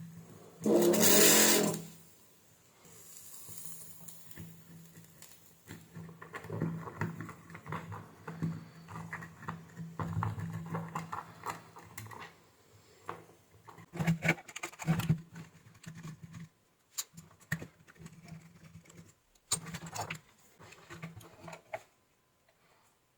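Hand work on an amplifier circuit board while old solder is cleared away: a loud hiss lasting about a second near the start, then scattered clicks and scraping over a low steady hum.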